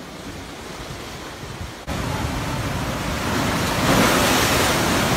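Storm waves surging and breaking against the posts of a stilt shed, with wind buffeting the microphone. The surf comes in suddenly about two seconds in, and a big wave crashes about four seconds in; before that there is only a quieter wash of wind and water.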